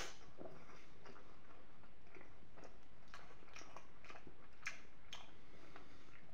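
Close-miked chewing of soft penne with peas in béchamel sauce: wet mouth smacks and small clicks, irregularly spaced, with one sharper click about two-thirds of the way in.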